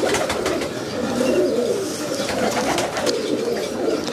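A loft full of domestic pigeons cooing, many calls overlapping into a continuous chorus, with scattered light clicks.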